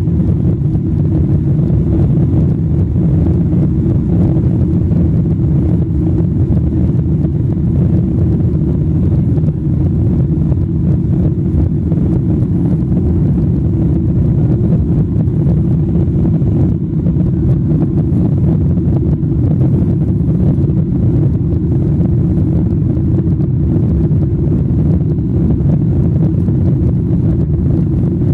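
Boeing 777-300 jet engines at takeoff thrust, heard inside the cabin as a steady, loud, low rumble mixed with airflow noise, through the takeoff roll, lift-off and initial climb.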